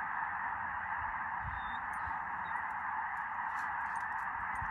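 A huge flock of geese calling all at once, a dense steady din of honking.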